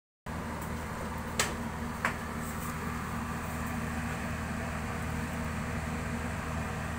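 Commercial ice maker running with a steady low hum from its compressor and fan, with two sharp clicks about a second and a half and two seconds in.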